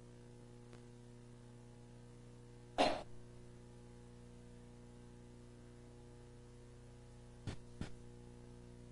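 A person coughs once, sharply, about three seconds in, with two short, fainter sounds near the end, over a steady low electrical hum.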